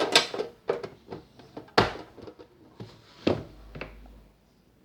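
Fidget spinners being handled and set down: a string of hard clicks and knocks, the loudest just before two seconds in and another a little after three seconds.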